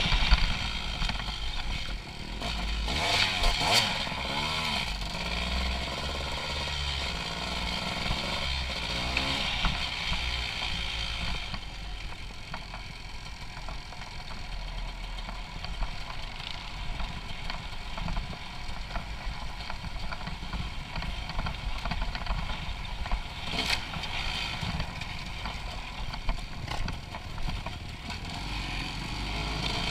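Dirt bike engine heard from an on-board camera, loud at first and dropping off after about two seconds, with a short rev, then running at low revs with occasional clatter and knocks.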